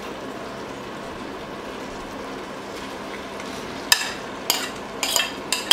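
Steady sizzle of a pot of chicken and vegetable sauce cooking on the hob. From about four seconds in, a spoon clinks sharply several times against the bowl and the steel pot as cooked rice is scooped in.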